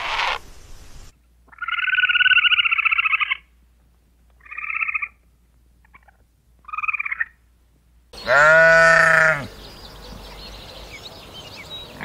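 A ground squirrel gives three trilled calls, the first about two seconds long and the next two short. About eight seconds in, a Barbary sheep gives one loud bleat.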